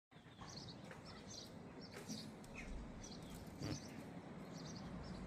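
Small birds chirping repeatedly in short high calls, faint, with a couple of light knocks in the middle.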